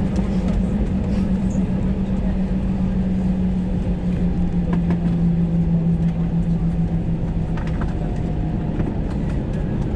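Airbus A321 jet engines heard from inside the cabin while taxiing after landing: a steady low rumble with a humming tone that drops slightly in pitch about halfway through and fades near the end.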